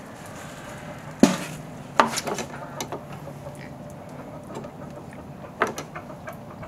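A butchering knife and utensils knocking and clattering on a hard work surface while a chicken is being gutted. There is a sharp knock about a second in, a quick run of clicks a second later, and another knock near the end.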